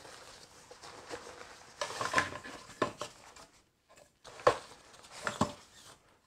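Rustling of a fabric oar bag, then several sharp metallic clinks and knocks with a short ring as sections of a take-apart aluminium oar are pulled out and handled.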